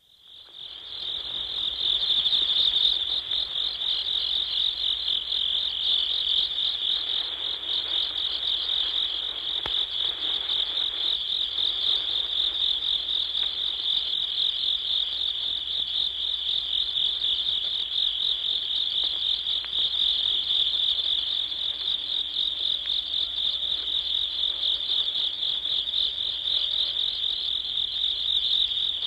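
Insects calling together in a field: a continuous, high-pitched, finely pulsing trill that fades in over the first second, then holds steady.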